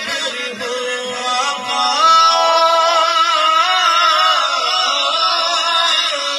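A man singing an Urdu devotional qaseeda (naat) into a microphone in long, wavering, ornamented notes. About two seconds in he rises to a louder, higher held line.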